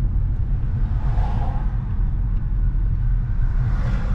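Car driving, a steady low rumble of engine and road noise heard inside the cabin.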